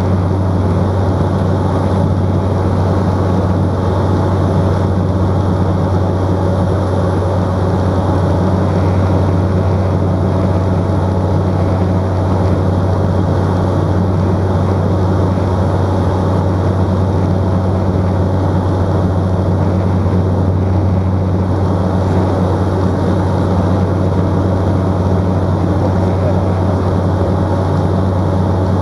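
Cessna 208 Caravan's PT6A turboprop engine and propeller running steadily in flight, heard inside the cockpit as a constant loud low drone with a rushing noise over it and no change in pitch.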